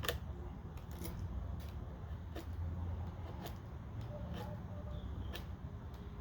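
Box-cutter knife blade cutting and scraping into a wooden carving: several short, separate scratchy cuts, spread irregularly over a low steady rumble.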